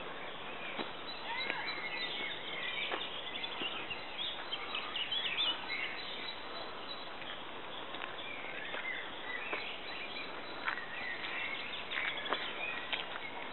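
Wild birds singing: repeated short chirps and whistles over a steady background hiss, with a few faint clicks.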